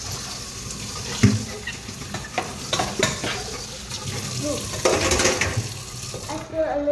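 A spoon stirring and knocking against the inside of a metal pot, over a steady hiss that stops near the end.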